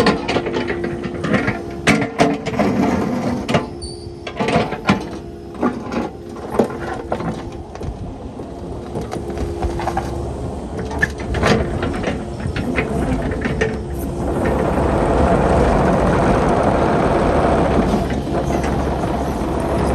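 Kubota KX080 crawler excavator's diesel engine running with a steady hum, with many sharp metal clanks and knocks over the first two-thirds. About two-thirds of the way in, the sound grows louder into a steady rushing noise as the machine works harder.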